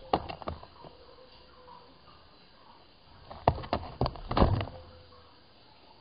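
Two short clusters of sharp knocks and rattles: one right at the start, and a longer one from about three and a half seconds in, with quiet between.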